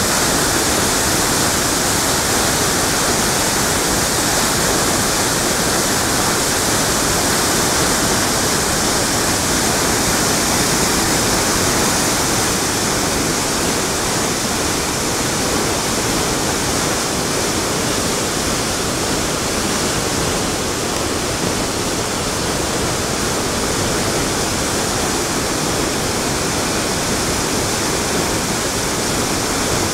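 Muskingum River in flood pouring over a low dam, a loud, steady rush of churning whitewater; the river is running very high after days of heavy rain.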